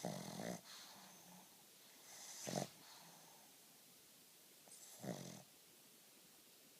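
Pug snoring in its sleep: three snoring breaths, about two and a half seconds apart.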